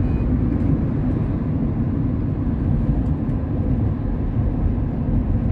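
Steady low rumble of a bus's engine and tyres, heard from inside the bus as it drives along the road.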